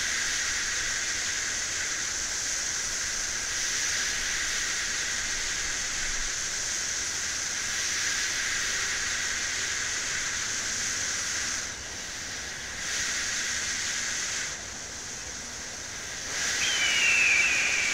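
Busch beer can's opening hiss ('Buschhh') drawn out into one long continuous hiss. It dips in level twice in the second half and swells again near the end, where a short high falling whistle sounds over it.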